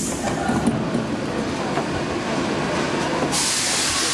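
Stockholm metro C15 train standing at a platform with its doors open: a steady low rumble, then about three seconds in a loud compressed-air hiss starts up from the train.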